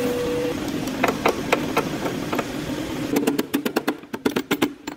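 Metal striking metal on a car body's sill: a few separate ringing blows, then a fast even run of knocks, about eight a second, from about three seconds in.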